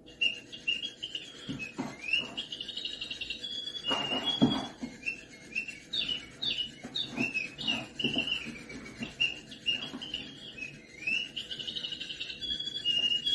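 A small bird chirping and tweeting over and over in quick, short, up-and-down calls, with a few light knocks or scuffs among them.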